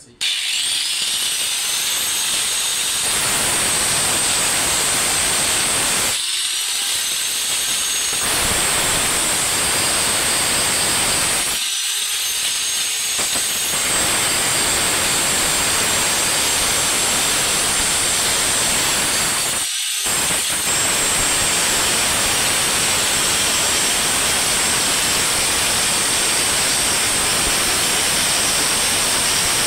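Handheld electric power tool running under load, with a harsh grinding noise over a high motor whine. It stops briefly three times and whines back up to speed each time it restarts.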